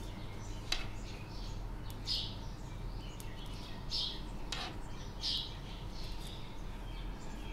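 Metal knitting needles sliding and scraping against each other and the yarn as stitches are worked, giving a short high squeak every second or two and a few light clicks, over a steady electrical hum.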